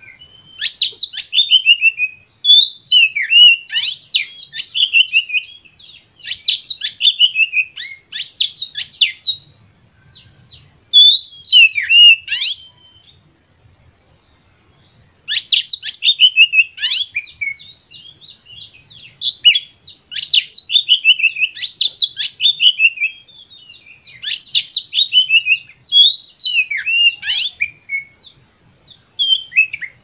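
Male oriental magpie-robin singing: loud phrases of quick repeated notes and falling sweeps, each a second or two long, one after another with a short pause about halfway through.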